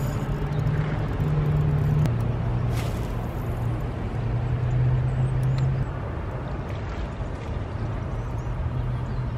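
A boat motor running steadily with a low hum, its pitch stepping up and down several times as its speed is changed.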